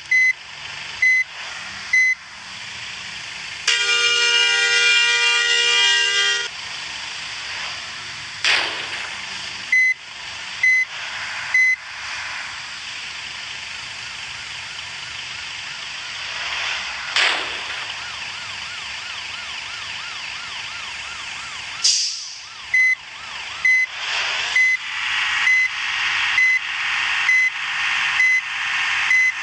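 Bus telolet horn, a multi-tone musical horn, sounding in patterns: spaced short toots at first, a held chord of several tones about four seconds in, a siren-like warble in the middle, and a quick run of repeated short blasts near the end.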